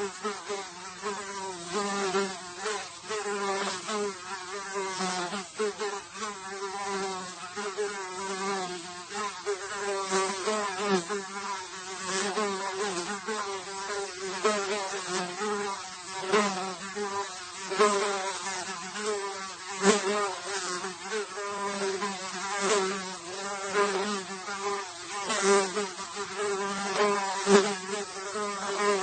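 A single fly buzzing in flight, its wingbeat drone wavering in pitch and swelling and fading in loudness as it moves about.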